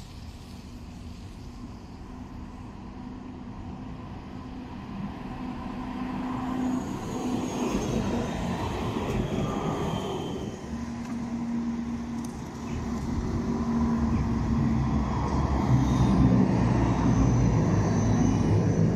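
Tram on a city street, its wheels rumbling on the rails and its motors humming, growing steadily louder as it draws near, with a few thin high whines over the rumble.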